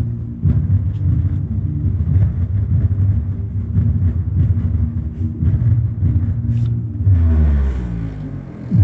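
Bass-heavy audio played loud through a high-power amplifier and subwoofer during a sound check. A deep, rumbling low end dominates, and a falling pitch sweep runs through it near the end.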